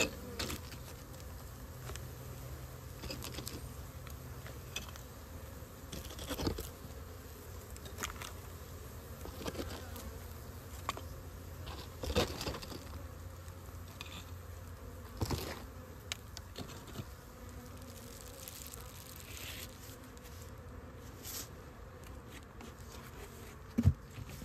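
Honeybees buzzing steadily around an open hive, with scattered knocks and scrapes as sugar bricks are laid on the frames. Near the end a sharp knock as the metal hive lid is set down.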